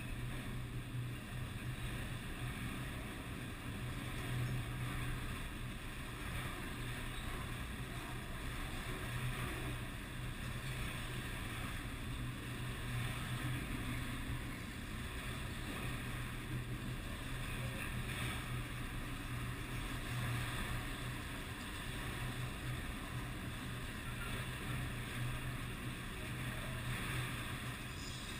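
Autorack freight cars rolling past at track side, a steady low rumble of steel wheels on rail.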